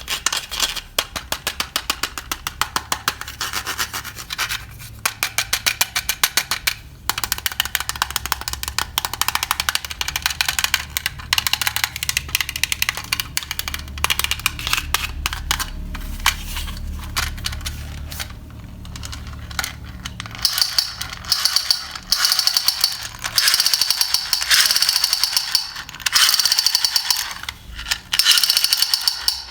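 Electric toy gun firing: a fast, rattling run of clicks over a low hum, turning brighter and harsher in the last third.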